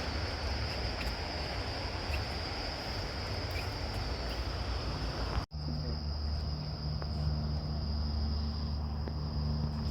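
Insects singing, one steady high-pitched continuous trill, with a brief dropout about halfway through. After the dropout a low steady hum runs underneath.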